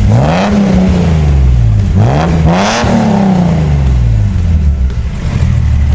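Classic Datsun S30 Z-car's engine revved twice through its dual exhaust, each rev rising and falling back, then settling to a steady idle.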